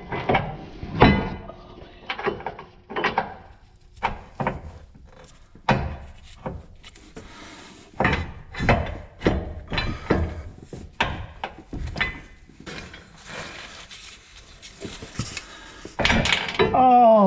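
Steel bracket and bolt clinking and knocking against a pickup truck's steel frame rail as they are fitted by hand, in irregular light taps. Near the end comes a louder clatter and a man's falling groan.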